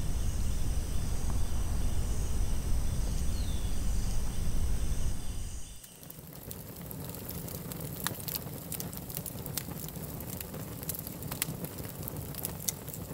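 Night forest ambience of chirping crickets over a low rumble, cutting off sharply about six seconds in to a quieter interior with faint scattered crackles and clicks.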